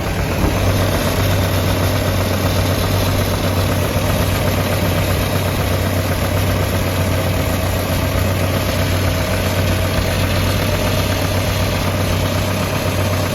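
1991 Chevrolet S10's 2.5 L Iron Duke four-cylinder engine idling steadily, freshly restarted in the cold after a no-start traced to a broken spark plug. It carries a noise that the owner thinks is from the belt.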